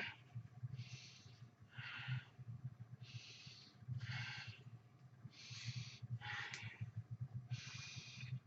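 A man breathing hard and evenly from the exertion of push-ups: about seven short breaths, roughly one a second, over a faint low hum.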